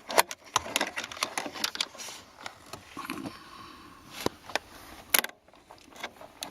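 Irregular sharp clicks, taps and scrapes of plastic parts being handled, as a vacuum actuator pod is fitted and seated into the climate-control flap housing.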